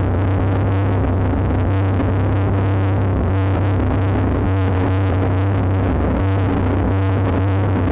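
Drone noise synthesizer played through effects pedals: a loud, steady drone of several held low tones under a dense, noisy texture.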